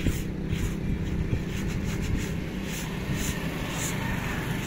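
A steady low mechanical hum, like a motor or engine running, with soft repeated scraping of a plastic bottle over a dusty concrete floor.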